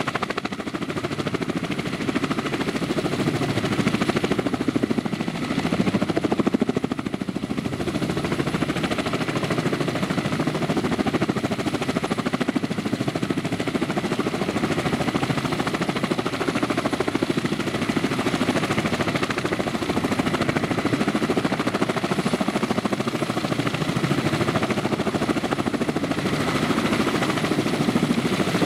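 Kamov Ka-32 coaxial helicopter running steadily on the ground, its twin turboshaft engines and two counter-rotating rotors turning, with a rapid even rotor chop over the engine noise and a thin high whine.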